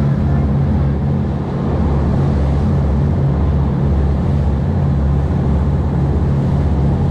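Boat engine running steadily under way at speed, a loud low drone, with water rushing and splashing past the hull.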